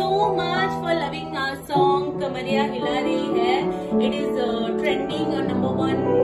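A woman singing a Bhojpuri song live, accompanied by held piano chords that change about two seconds in and again near the end.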